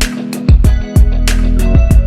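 Background music with a steady beat: a drum pattern with kick and cymbal hits over guitar-like plucked strings.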